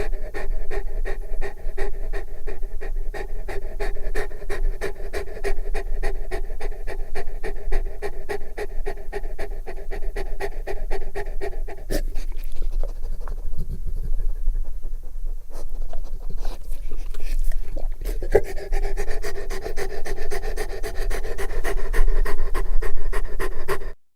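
Large Bullmastiff panting heavily and fast, about three to four breaths a second, with a deep voiced tone in each pant. About halfway through the panting thins and loses its tone for several seconds, then picks up again.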